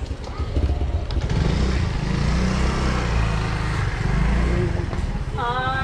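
A motor vehicle's engine passing close on the street, its rumble building about a second in and loudest through the middle. A singing voice or melody starts near the end.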